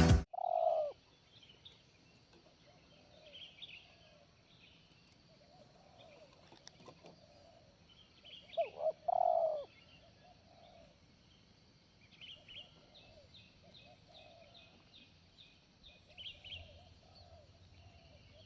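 Spotted doves cooing in repeated phrases, loudest just after the start and again around the middle, with fainter coos in between, while small birds chirp faintly and high.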